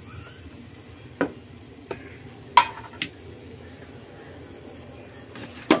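Faint steady sizzle of a dosa frying on a hot iron tava, broken by about five short sharp clicks, the loudest about two and a half seconds in and just before the end.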